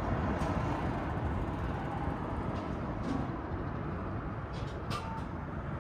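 Vending machine's robotic lift moving a boxed meal to the outlet: a steady low mechanical rumble with a few light clicks, several of them about five seconds in.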